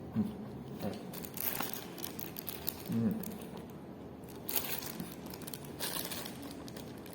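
Food packaging crinkling as it is handled, in three short bursts.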